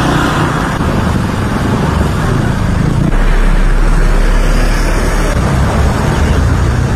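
Road traffic noise: vehicle engines running and passing on a wet road, with a deeper low rumble setting in about three seconds in.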